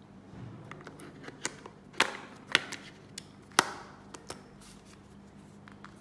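Phone battery being seated in a rugged phone's plastic battery compartment: a run of small clicks and taps, with three sharper clicks in the middle as it is pressed into place.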